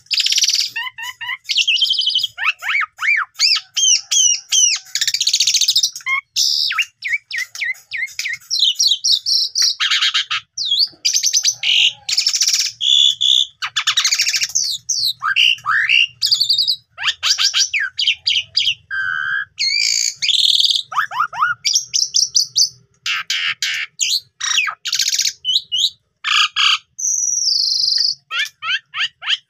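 Javan pied starling (jalak suren) in full song: a fast, varied run of sweeping whistles, chattering note trains and harsh notes in short phrases with brief gaps, the kind of song full of mimicked phrases that bird keepers call 'bongkar isian'. A held whistle comes near the end.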